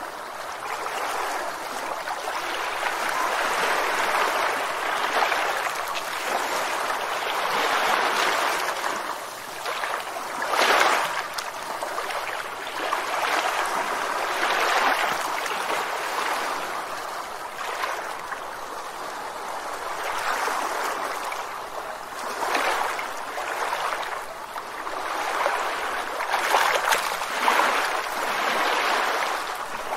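River water flowing and splashing, a continuous rush that swells and ebbs, with a few louder surges, the clearest about eleven seconds in and again near the end.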